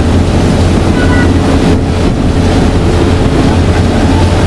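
Boat engine running steadily with a low hum, under the rush of water along the hull and wind buffeting the microphone.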